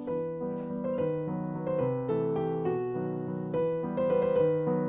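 Background piano music, single notes following one another at an even pace over lower held notes.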